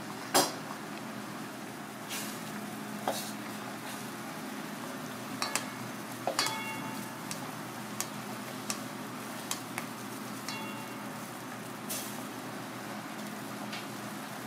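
A pot of surgeonfish, tofu and green peppers cooking in bubbling liquid on a gas burner, with a steady sizzling hiss over a low steady hum. A sharp knock about half a second in, and later a few light metallic clinks that ring briefly, as of a ladle against the pot.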